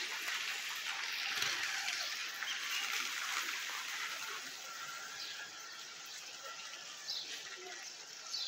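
Outdoor background of an even hiss that slowly fades, with a couple of short bird chirps near the end.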